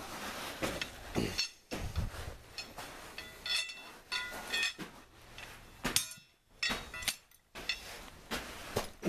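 Old metal pieces, rods and knife blades, clinking as they are dropped and handled on a pea-gravel base. It is an irregular series of sharp clinks, several of them ringing briefly.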